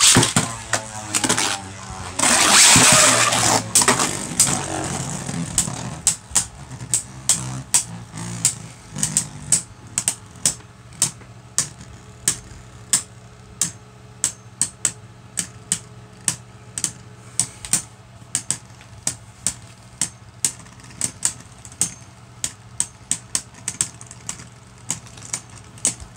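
Two Beyblade Burst tops, Cyclops C4 and Nightmare Longinus, launched into a plastic stadium. A loud rush of noise comes with the launch for the first few seconds, then a long run of sharp clicks, about two a second, as the spinning tops knock against each other.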